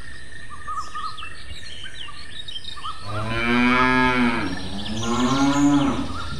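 Cow mooing twice, a long low call about three seconds in followed by a second call that rises in pitch, over birds chirping.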